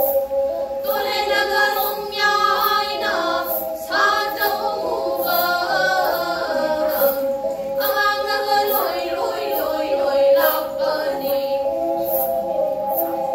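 Four pena, the Manipuri single-string bowed fiddle, bowed together over a steady held tone while women's voices sing a folk song in unison, phrase by phrase from about a second in. Small bells on the pena bows jingle at a steady beat with the bowing.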